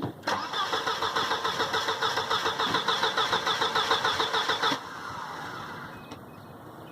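1990 Volvo 740 GL's red-block four-cylinder engine cranking on the starter with an even, rhythmic beat for about four and a half seconds without catching, then the cranking stops abruptly. The engine won't fire because, the owner believes, the fuel pump isn't running.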